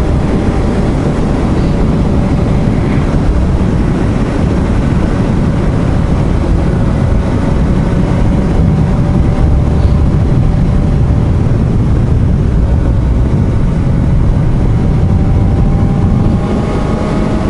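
Motorcycle on the move, most likely the rider's own Suzuki GSR750 inline-four: the engine runs at a steady cruise under a heavy rush of wind noise on the microphone. The engine note rises slightly near the end.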